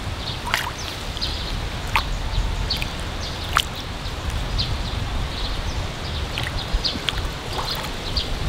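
Outdoor ambience: small birds chirping in short high notes over a steady low rumble, with a few sharp clicks about half a second, two seconds and three and a half seconds in.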